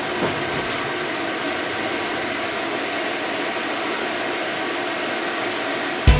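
Steady running noise heard inside a tram's cab as it pulls away from a stop, an even rumble and hiss with a few faint steady tones. Music cuts in at the very end.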